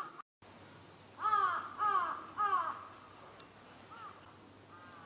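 A crow cawing: three loud, evenly spaced caws about a second in, then two fainter caws near the end.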